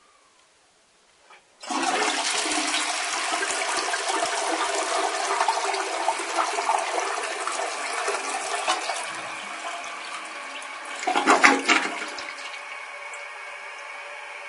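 Toilet flushing. After a brief quiet with a faint click, the flush rushes in suddenly and runs steadily for about ten seconds. It swells into a louder surge near the end, then drops to a quieter steady hiss.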